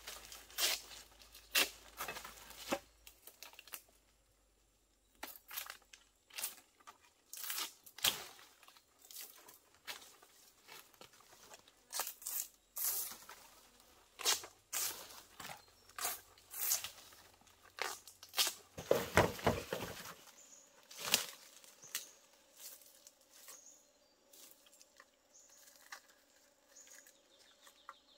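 Dry bamboo leaves and twigs crackling and rustling in irregular bursts as bamboo stalks are handled and pulled, with a dense flurry of crackles about two-thirds of the way through.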